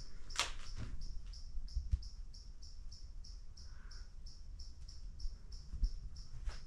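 A cricket chirping steadily, short high-pitched chirps about three times a second. A brief scrape about half a second in and low thumps from movement underlie it.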